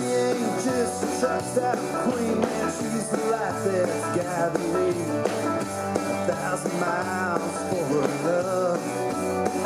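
Country rock song playing: guitars and a bending melody line over a steady, changing bass line.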